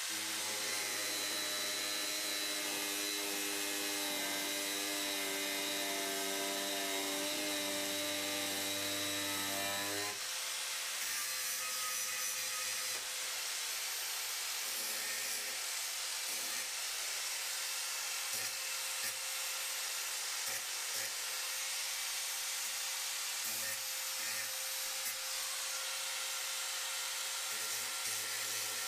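Power cutting tool trimming a 3/8-inch stainless steel axle rod to length. It runs steadily for about ten seconds and then stops, followed by short, irregular rubbing and handling sounds.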